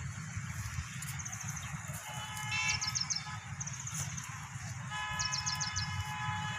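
Outdoor ambience with a steady low rumble. A horn-like steady tone sounds twice, briefly about two seconds in and longer from about five seconds in. Short bursts of rapid high chirping come several times.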